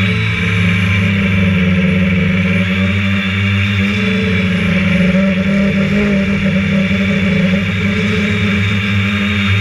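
Multirotor drone's electric motors and propellers running with a steady buzzing hum, heard close from the GoPro carried on its anti-vibration mount.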